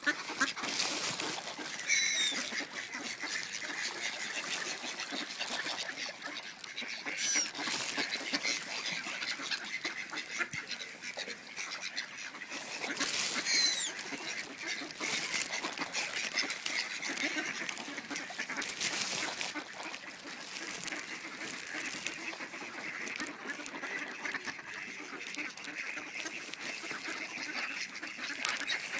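Mallard ducks quacking repeatedly, a steady run of short calls from several birds gathered for food.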